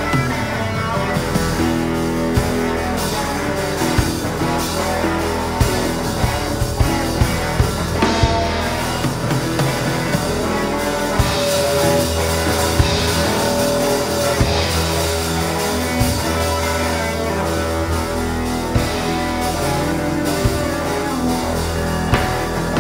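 Live rock band playing an instrumental passage: electric guitars over a drum kit with steady regular hits, with grand piano and double bass.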